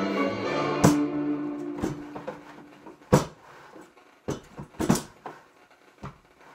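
Guitar music fading out over the first second or two, followed by about seven sharp clunks of a blender jar and lid being handled on the counter, the loudest about three and five seconds in.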